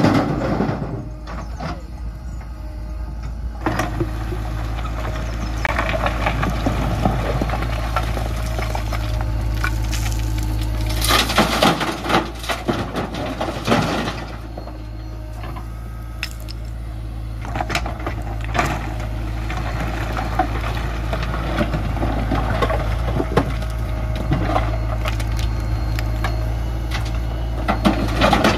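JCB 3DX backhoe loader's diesel engine running steadily, with stones clattering and thudding as its bucket scrapes the pile and dumps rock into a steel tractor trolley. The loudest clatter comes about eleven to fourteen seconds in.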